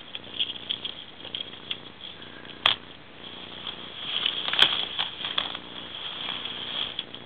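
Ferrets scrambling through and around a flexible ribbed duct tube, making an uneven run of light crinkling, scratching and pattering, with two sharp knocks about two and a half and four and a half seconds in.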